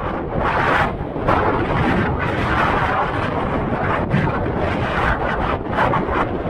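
Wind buffeting the microphone of a DJI Osmo Action camera: a loud, gusting rumble with no clear tones.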